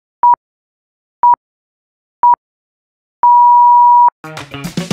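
Countdown timer beeps: a pure electronic tone sounding three short beeps a second apart, then one long beep of about a second as the count reaches zero. Music starts just after the long beep, near the end.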